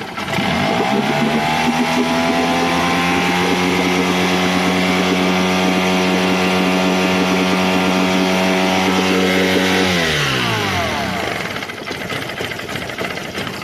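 Honda BF15A four-stroke twin-cylinder outboard engine picking up revs about half a second in and running at a steady, higher speed while its ignition module is handled. Near ten seconds in it glides back down to a lower speed. The owner takes this on-and-off improvement for a sign of an intermittent fault in the CDI ignition module.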